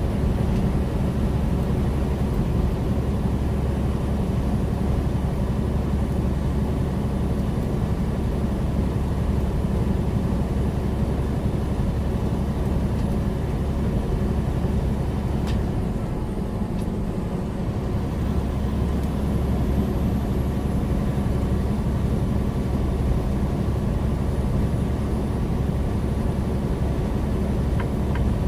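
Inside the cab of a semi-truck cruising on the highway: a steady diesel engine drone with tyre and road noise. The drone eases briefly about two thirds of the way through, then settles back.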